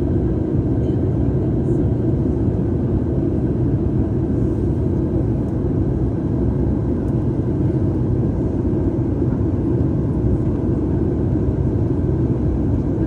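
Steady low rumble of a Boeing 737 airliner's engines and rushing air, heard inside the passenger cabin in flight. It stays even throughout, with no change in pitch or level.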